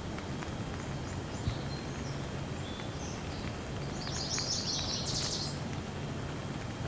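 Steady rain falling, with birds chirping over it: a few scattered short chirps, then a burst of rapid high chirping about four seconds in.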